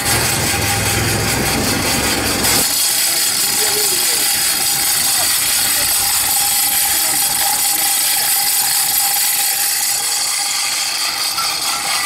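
Hand-cranked Empire Blower Co. ten-inch double-gear forge blower being turned steadily, its gears whirring as it blows air into a charcoal forge fire.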